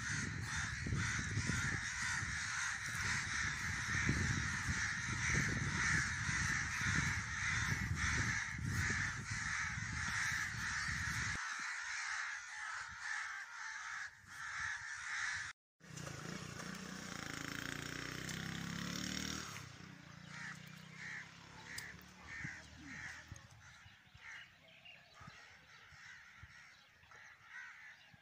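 A flock of crows cawing, many at once in a dense, continuous chorus. After a break about 16 seconds in, fewer and fainter separate caws.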